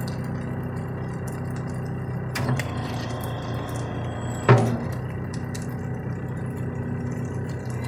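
Engine of a loader carrying a grapple attachment, running steadily at an even pitch. There is a knock about two and a half seconds in and a sharper, louder knock about halfway through.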